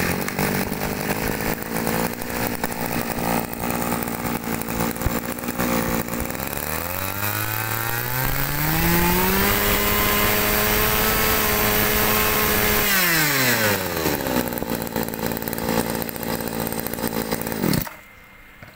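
Small two-stroke brush cutter engine, a Mitsubishi TNL23 of 23cc, idling, then throttled up for about four seconds of steady high revs and let back down to idle. It is switched off near the end and stops abruptly.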